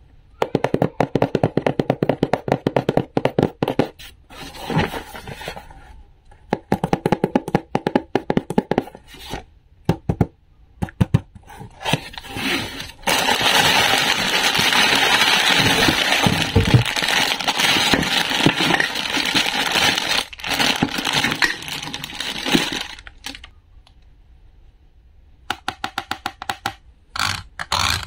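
Fingertips and nails tapping and scratching rapidly on a cardboard box. Around the middle comes a long stretch of crinkling as a plastic bag of toys is handled inside the opened box. More rapid tapping follows near the end.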